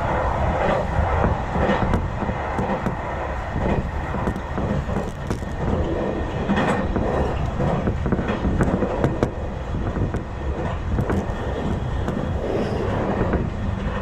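Electric commuter train running at speed, heard from inside the carriage: a steady rumble of wheels on the rails, broken by irregular clicks from the track.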